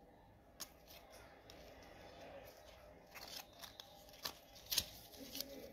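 Rookies and Stars football trading cards rubbing and sliding against one another as a handful is shuffled through by hand. It is a faint rustle, broken by a few sharp snaps of card edges; the loudest snap comes near the end.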